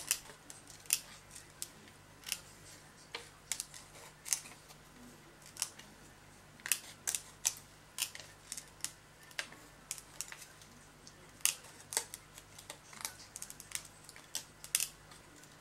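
Small craft scissors cutting heat-embossed acetate: a run of short, crisp snips at irregular spacing, about two a second, as the blades work closely around the embossed leaf shapes.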